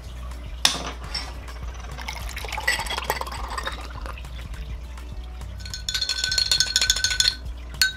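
Cold brew coffee poured from a glass bottle into a tall drinking glass, then a metal spoon stirring briskly in the glass. In the last couple of seconds the spoon clinks rapidly against the glass with a ringing tone.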